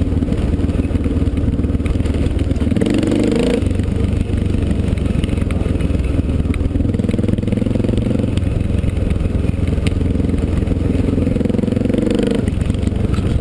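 Dirt bike engine running under way on a dirt trail, its revs rising and falling a few times as the throttle is worked.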